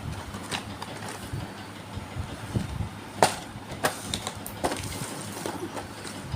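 Irregular clicks and knocks from small die-cast toy cars and their packaging being handled, with one sharper knock about three seconds in.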